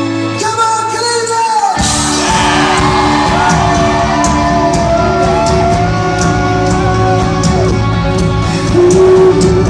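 Music: a song with singing; sustained chords at first, then about two seconds in a full band with a steady drum beat comes in under a gliding vocal line.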